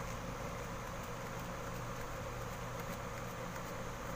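Steady low hum and hiss of background machine noise, with a few faint small ticks.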